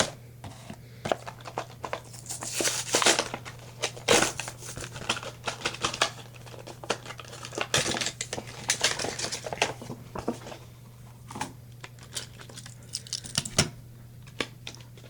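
Toy packaging being handled: crinkling and rustling of plastic and card, with scattered clicks and taps, in longer spells about three seconds in and again around eight to ten seconds.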